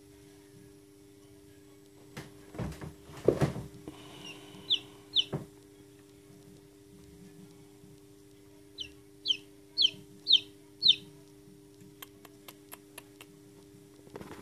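Newly hatched chick peeping: short, high chirps that fall in pitch, two around five seconds in, then five in quick succession a few seconds later. A few loud thumps come before the peeps, and a steady low hum runs underneath.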